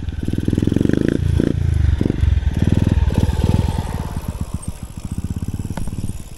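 Motorcycle engine chugging as it climbs a steep dirt trail just ahead, loud for the first three seconds and then fading as it pulls away. Light rattling and clicks from the bicycle on the rough track follow near the end.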